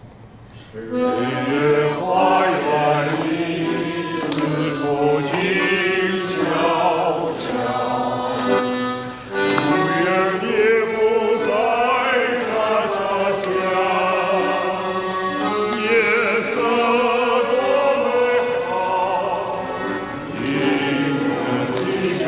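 A song sung in Chinese, the voice holding long notes with vibrato, starting about a second in.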